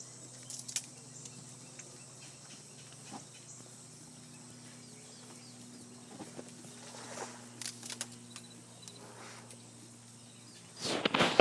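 Utility vehicle engine idling steadily, with scattered soft clicks and rustles from giraffes close around it and a louder noisy burst near the end.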